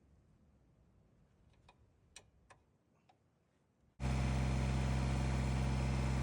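A few faint clicks, then, about four seconds in, the Kubota BX24 compact tractor's three-cylinder diesel engine comes in abruptly and runs steadily.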